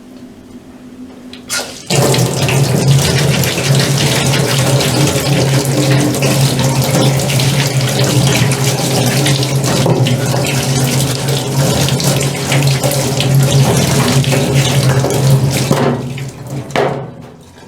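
Water running hard from a tap and splashing, with a steady low hum under it. It is turned on about two seconds in and shut off near the end.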